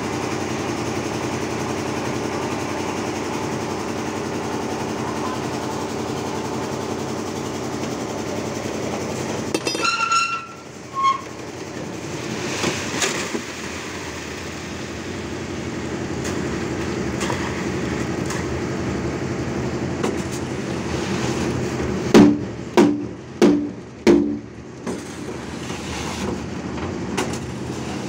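Automatic concrete mixer with skip hoist running steadily. About ten seconds in the sound changes, and wet concrete rushes out of the tipped skip bucket into a wheelbarrow. Later comes a run of five loud knocks about half a second apart.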